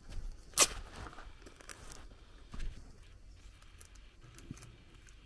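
Footsteps on a dirt and gravel lane, slowing to a few soft scuffs, with one sharp crack about half a second in.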